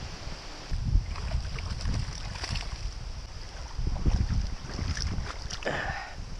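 Wind buffeting the microphone in low gusts, with short splashes and rustles as a small zander is drawn through the shallows to the bank and taken by hand. A brief louder splash comes near the end.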